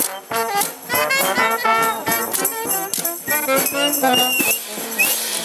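Brass street band playing a marching tune: trumpets, trombone and saxophone over a steady bass-drum beat, with accordion.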